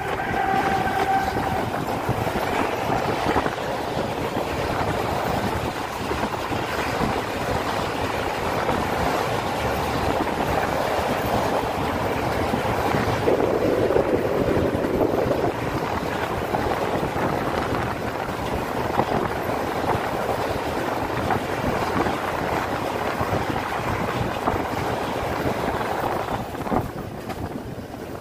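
A PKP Cargo ET22 electric locomotive passes with a long freight train of loaded open wagons: a steady rumble and clatter of wheels on the rails, with a brief whine from the locomotive at the start. The sound fades near the end as the last wagons go by.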